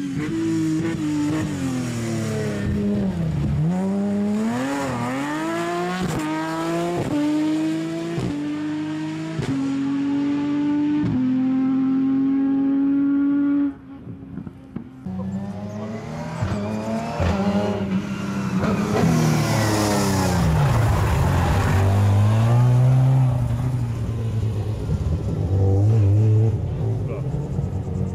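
Rivet Nissan rally buggy engine accelerating hard up through the gears, the revs climbing and dropping back with each upshift. After a sudden cut about halfway, the engine is heard again revving and slowing, the pitch falling with downshifts and settling to low revs near the end.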